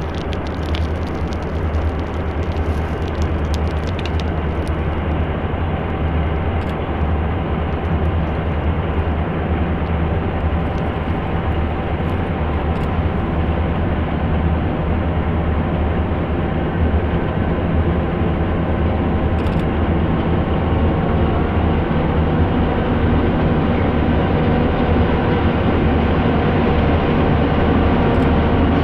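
Four EMD GP-series ('Jeep') diesel locomotives running in a steady low drone as they bring a loaded freight train down a steep grade, growing louder as the train draws near.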